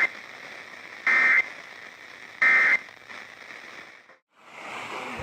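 Emergency Alert System end-of-message (EOM) data bursts over radio hiss: two short bursts of steady digital tones, about a second in and about two and a half seconds in, closing the end of a third. They signal the end of a severe thunderstorm warning message. The hiss cuts out briefly near four seconds.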